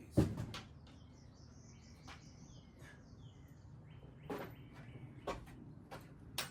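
A sharp knock just after the start, then a few light clicks and taps from tools and parts being handled, with birds chirping faintly in the background.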